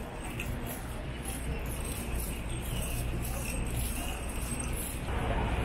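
Midtown Manhattan street traffic: a steady low rumble of buses and cars, with a light high-pitched clinking about twice a second. The traffic grows louder about five seconds in.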